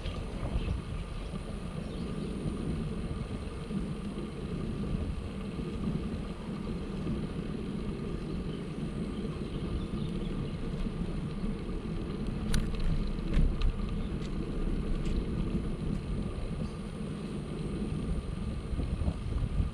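Steady low rumble of wind on the microphone and road noise from a moving bicycle, with a few sharp clicks about twelve to fifteen seconds in.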